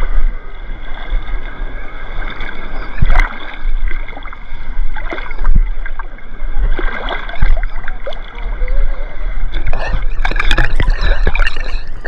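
Sea water splashing and sloshing around someone wading in, the splashes coming thicker near the end, over a constant low rumble of wind on the microphone.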